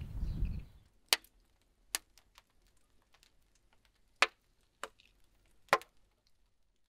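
Burning wood logs crackling: about five sharp, loud pops at uneven intervals with many faint ticks between, over near silence.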